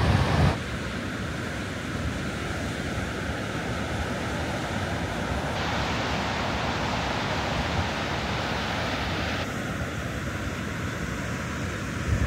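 Steady roar of the Gullfoss waterfall's falling water. Wind buffets the microphone with a low rumble that cuts off about half a second in.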